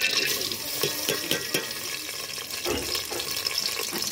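Sliced onions going into hot cooking oil in a steel pot and sizzling with a steady hiss, with a few knocks as the pieces drop in.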